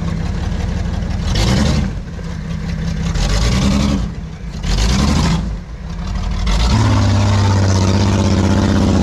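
Off-road 4x4's engine revving hard on a muddy hill climb in three or four short surges. From about seven seconds in it is held at a steady high rev.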